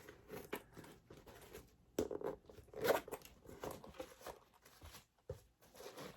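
Faint, irregular rustling and light knocks from handling, with a sharper click about two seconds in.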